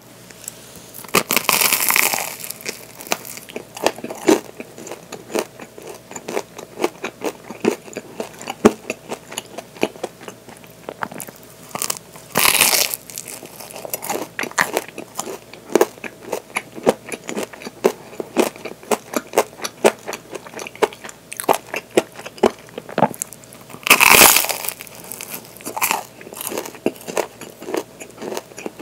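Close-up biting and chewing of a waffle crusted with coarse zarame sugar: three loud crunching bites, about two seconds in, about twelve seconds in and about twenty-four seconds in, with crunchy chewing full of small crackles and clicks between them.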